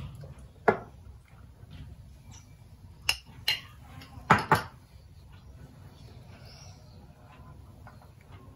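A metal spoon clinking against a glass honey jar and china plate: a handful of sharp clinks in the first five seconds, then quieter handling.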